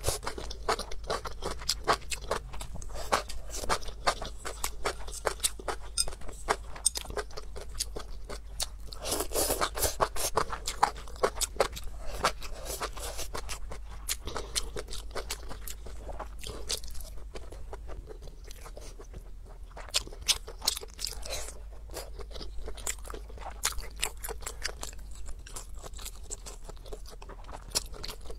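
Close-miked chewing: a person eating braised pork belly with enoki mushrooms, many small wet mouth clicks and crunches in an irregular run, busiest about ten seconds in.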